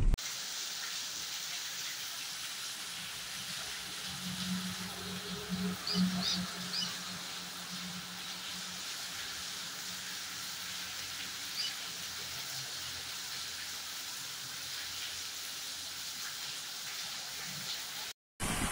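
Steady rainfall hissing. A few faint bird chirps come through about five to seven seconds in and again near twelve seconds, over a faint low hum from about four to nine seconds in.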